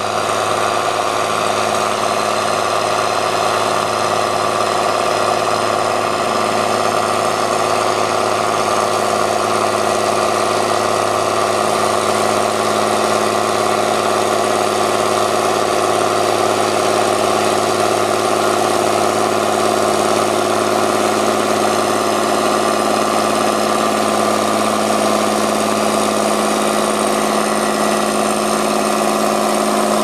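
Diesel engine of a Fendt 614 S Favorit tractor running steadily under load as it pulls a plough through heavy soil, with a Fendt 930 Vario coupled behind it. The pitch holds even throughout.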